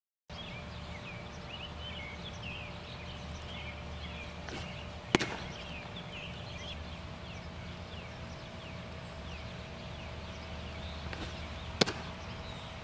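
A baseball smacking into a catcher's mitt twice, about six and a half seconds apart, each pop sharp and the loudest thing heard. Behind it, birds chirp continually in short falling notes, over a faint steady hum.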